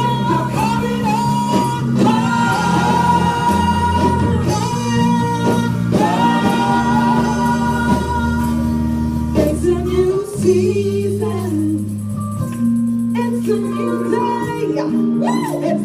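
Live gospel music: a church choir singing with band accompaniment over a steady moving bass line.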